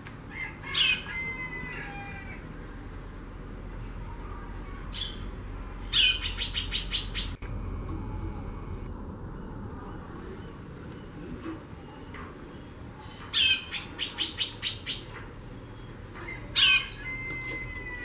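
Female white-bellied seedeater (chorão) calling in breeding condition: four times, a sharp downslurred note followed by a quick run of dry ticks, about five a second. Faint short high chirps come between the calls.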